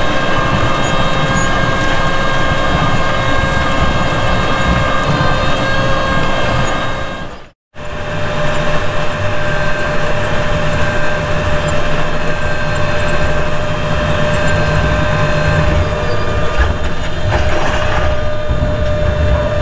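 Tractor engine running steadily under load in the field, a low drone with a held whine over it; the sound cuts out briefly once about a third of the way in.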